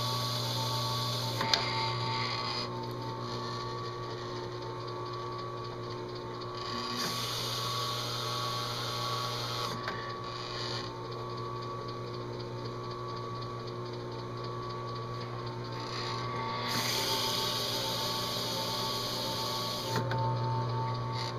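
A machine spindle running steadily while its spinning abrasive pad is pressed down onto an aluminum dash insert three times, each press adding a scrubbing hiss for a few seconds: engine turning, grinding overlapping swirls into the metal.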